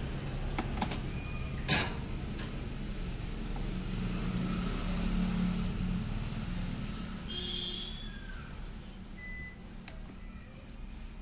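Steady low background rumble, like distant traffic, with a single sharp click about two seconds in and a few faint, brief high tones.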